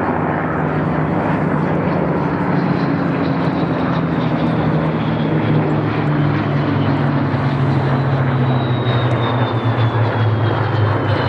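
Display aircraft engines running as aircraft fly past, a steady low drone with a high whine that slowly falls in pitch over the last few seconds as one passes by.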